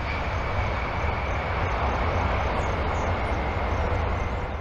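Jet engines of a four-engined Boeing 747 airliner rolling out on the runway just after touchdown: a steady, loud rumbling roar with a faint whine on top, fading away at the very end.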